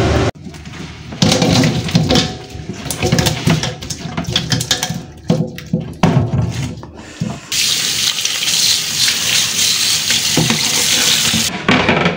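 Small fish being tipped into and handled in a metal colander in a stainless steel sink, with wet clattering and splashing, then a tap running steadily for about four seconds, stopping shortly before the end.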